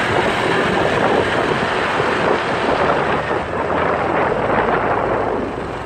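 Wind rushing and buffeting on the microphone of a moving motor scooter, with the ride's road noise underneath. It eases off near the end.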